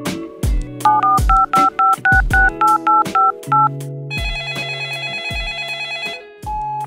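A phone number is keyed in: a quick run of about ten touch-tone beeps, then the line rings for about two seconds, over background music with a steady beat.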